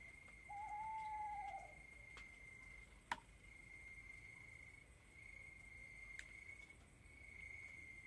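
Tropical forest ambience, faint: a steady high insect trill throughout, one arched hooting call about half a second in lasting about a second, the loudest sound, and a few sharp clicks, the strongest about three seconds in.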